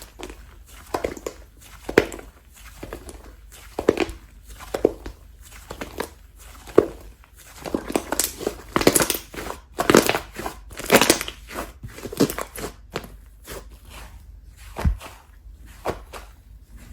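Slime being pressed and squished by hand, giving irregular crunchy crackles and pops, with a louder run of them about halfway through.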